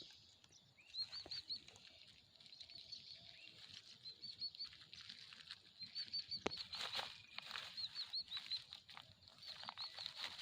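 Small birds chirping continually in quick, repeated high notes, with intermittent rustling and crackling clicks, busiest in the middle of the stretch.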